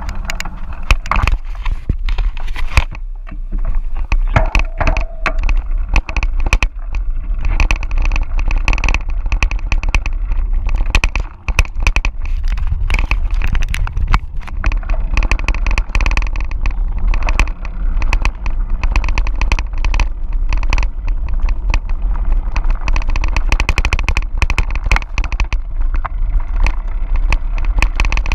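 Mountain bike riding over a gravel dirt road: tyres crunching and the bike rattling in a dense, continuous clatter, over a steady rumble of wind on the camera's microphone.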